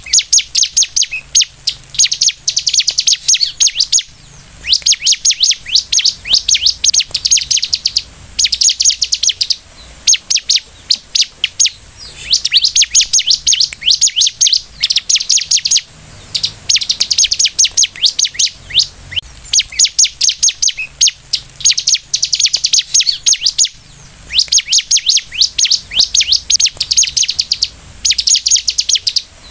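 Bar-winged prinia (ciblek) singing energetically: fast strings of high, sharp chirps in phrases of two to four seconds, broken by short pauses.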